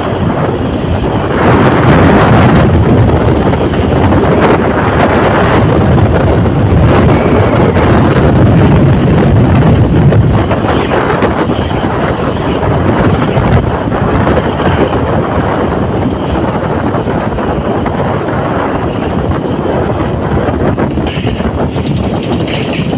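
Wind buffeting the microphone on a moving motorcycle: a loud, steady rushing noise over the sound of the road and passing traffic, loudest in the first half.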